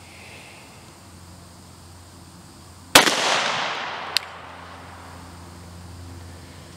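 A single pistol shot from a Glock 41 in .45 ACP, about three seconds in, its echo dying away over about a second; a short sharp tick follows about a second after the shot.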